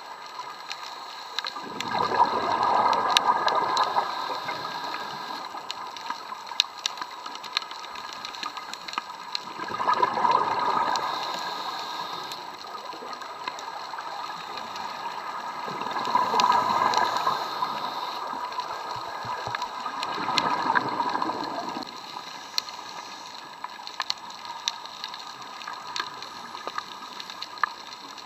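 Scuba diver's regulator exhaust bubbling underwater as the diver breathes out: four rushes of bubbles, each about two seconds long, a few seconds apart. Between them there is a steady faint hiss with scattered ticks.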